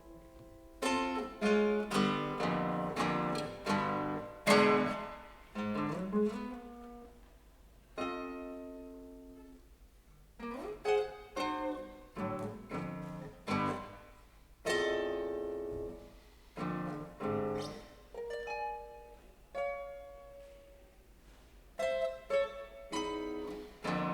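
Contemporary chamber music for clarinet, violin, double bass, guitar and piano. Short clusters of sharp plucked and struck notes ring and die away, broken by quieter gaps of a second or two.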